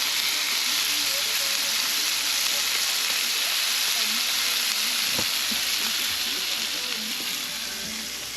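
Mule deer meat sizzling in a frying pan as a steady hiss that eases off a little in the last couple of seconds, with a light tap about five seconds in.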